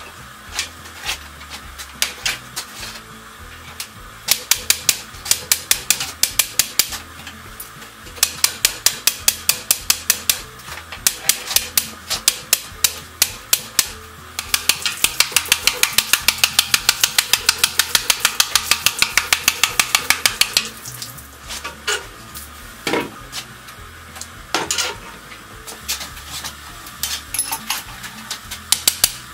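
Hammer blows on a steel buggy-wheel tire as it is driven down onto the wooden felloes during tire setting, in quick runs of about five strikes a second. From about 15 to 21 seconds in, a steady hiss sits under a fast unbroken run of blows, and after that the strikes come singly.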